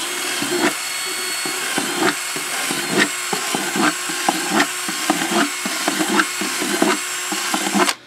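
Cordless drill with a 1/4-inch bit boring holes through the plastic bottom of a coffee can. The motor runs steadily, with frequent clicks and crackles as the bit cuts through the plastic; it stops near the end.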